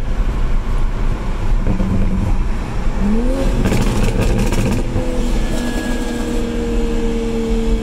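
2020 Toyota Supra (downpipe and Botti E50 tune), heard from inside the cabin, accelerating hard on a pull. Its engine pitch climbs about three seconds in and then holds steady and rises slowly. A cluster of sharp cracks comes about halfway through, over a constant low rumble of road noise.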